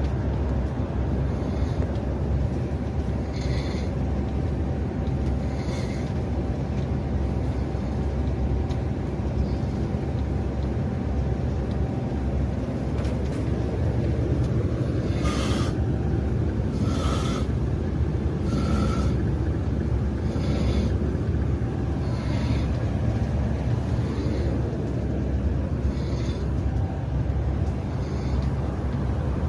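A passenger snoring in short bursts about every two seconds, over the steady low rumble of a long-distance bus on the move.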